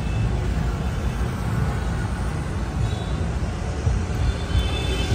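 Steady low rumble of road traffic, with faint high tones entering near the end.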